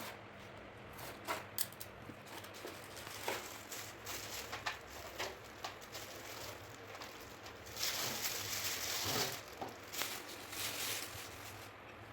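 Packaging and plastic parts of a toy airgun being handled during unboxing: scattered clicks and knocks, with a longer crinkling rustle about eight seconds in.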